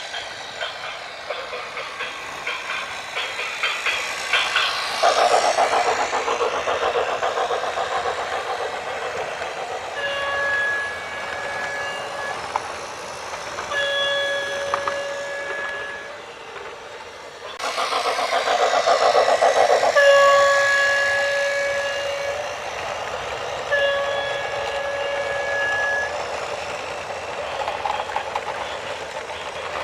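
A train running past with a rapid clatter, its horn sounding four long blasts of about two seconds each on a single note.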